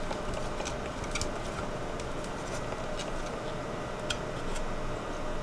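A handful of light clicks and taps from fingers handling the plastic parts and cable connector of an opened Dell Latitude D630 laptop, scattered over a steady background hiss.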